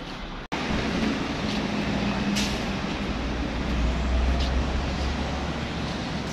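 Downtown street traffic: a city bus's engine running as it passes, with cars going by. The sound drops out for an instant about half a second in.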